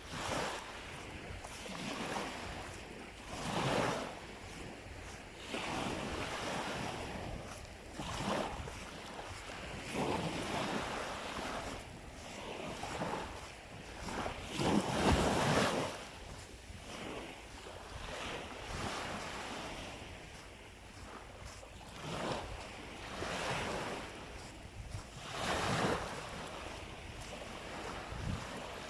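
Surf on a sandy beach: small waves breaking and washing up the shore every two to three seconds, the biggest about halfway through, with wind rumbling on the microphone.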